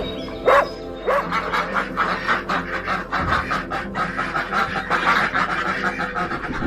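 A dog barks once, then comes a busy run of many short, rapid, overlapping animal calls that lasts to the end.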